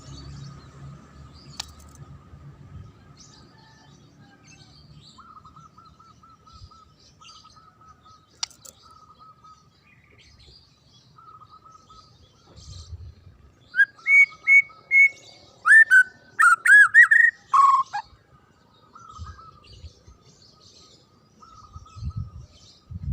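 White-rumped shama (murai batu) singing: soft, repeated warbling throughout, with a loud run of short rising whistled phrases in the middle.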